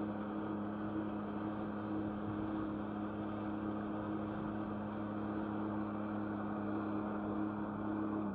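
Jet ski engine running steadily under throttle, its pump driving water up the hose to a flyboard: a constant drone held at one pitch over a steady hiss.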